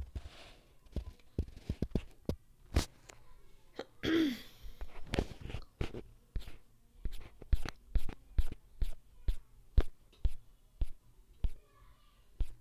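Fingertip taps on a phone touchscreen picked up by the phone's microphone, a run of sharp clicks at about two a second while slides are skipped forward. A short breathy vocal burst with a falling pitch comes about four seconds in.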